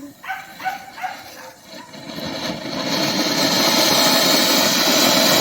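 Ground firework fountain hissing as it burns, building over about a second to a loud, steady spray of noise that cuts off near the end. Before it starts, a few short high-pitched yelps.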